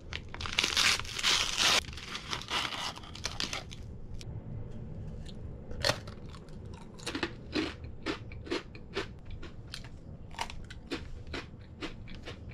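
Crinkling of the plastic wrappers on packaged senbei rice crackers being handled: a dense rustle for the first couple of seconds, then scattered crackles and clicks.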